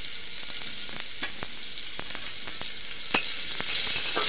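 Chopped onions sizzling as they fry in hot ghee in a pressure cooker, a steady hiss. Scattered light clicks run through it, with a sharper knock about three seconds in.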